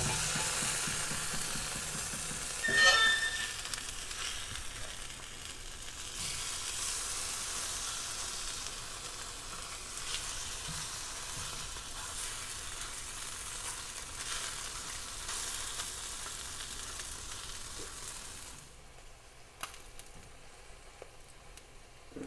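Slices of Spam sizzling in a nonstick frying pan as they are turned over, with a brief louder squeak about three seconds in. The sizzling grows quieter near the end.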